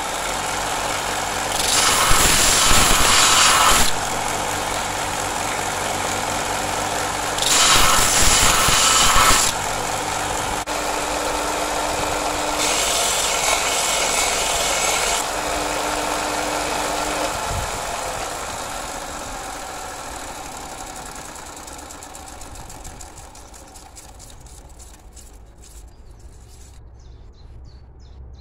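Bench grinder with a belt-sander attachment running with a steady hum, while a small steel flint striker is pressed against the abrasive belt three times. Each pass is a loud rasping hiss of about two seconds. In the second half the motor winds down and the sound fades away.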